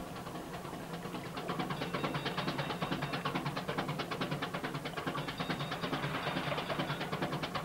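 Motorboat engine chugging steadily with a rapid, even knock, growing louder about a second and a half in.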